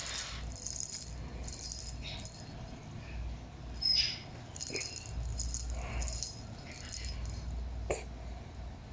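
Rattling and jingling in short, irregular bursts, with a brief high chirp about four seconds in.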